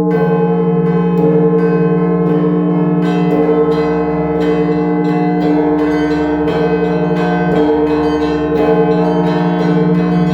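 Russian Orthodox church bells rung by a single ringer in traditional zvon. The smaller bells are struck in quick, repeated patterns over the steady, sustained hum of the large bells.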